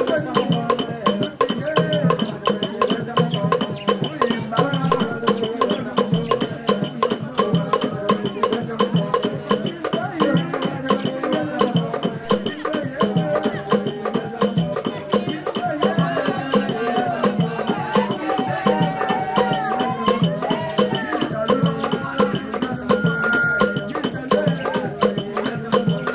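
Traditional Congolese (Mbala) folk music for dance: a fast, steady beat of sharp wooden clicks and percussion under several voices singing together.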